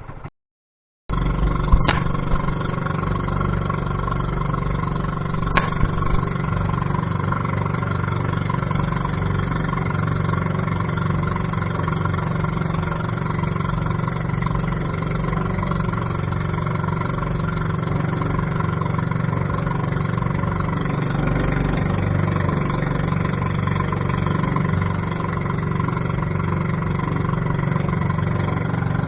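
Fishing boat's engine running steadily under way, starting about a second in. Two sharp knocks come about two and six seconds in.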